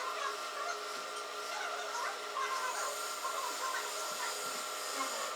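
Wood lathe running at a steady speed: an even machine hum made of several fixed tones.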